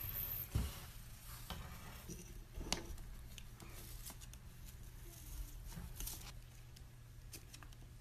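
Faint scuffing and scattered small clicks of a white-bellied caique scrabbling and rolling about on a wooden floor, over a low steady hum.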